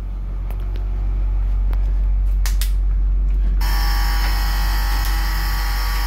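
Bluebird school bus engine idling with a steady low hum, a few clicks as the rear emergency door latch is worked, then about three and a half seconds in the emergency-exit door alarm buzzer switches on abruptly and sounds steadily as the door opens.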